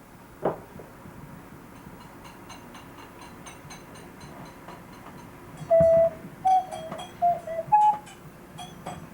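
Audio feedback between the camcorder's microphone and the TV's speaker: a feedback squeal made of short steady tones that jump between a few pitches, starting a little past halfway. Faint ticking lies under it, and there is a single knock near the start.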